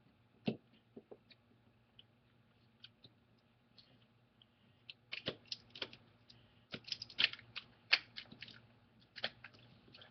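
A small hand tool clicking and scraping on the Nexus 7 tablet's main board and frame as screws and cable connectors are worked loose. The light clicks are sparse at first and come thick and fast from about halfway.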